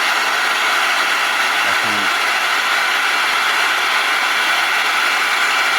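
Loud, steady static hiss from a stereo amplifier built on two LA4440 chips, playing through its small 3-inch speakers with no programme signal, heavy in the upper mids and nearly without bass.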